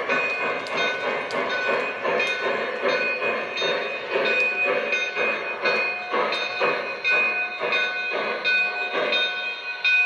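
O gauge model steam locomotive running along the track: a rhythmic chuffing with sharp clicks about every half second from the wheels over the rail joints, over a steady high whine.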